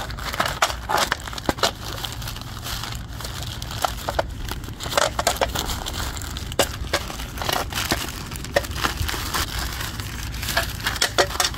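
Plastic poly mailer envelope being torn open by hand and the black plastic bag inside crinkled and pulled out: irregular crackling and rustling of plastic throughout.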